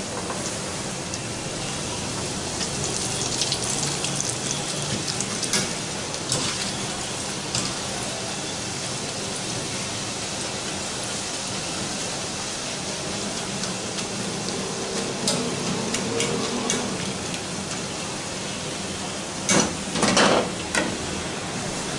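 Zeera papri dough rounds deep-frying in hot oil in a metal karahi, a steady sizzle. A wire skimmer clinks and scrapes against the pan now and then, with a louder clatter of metal near the end.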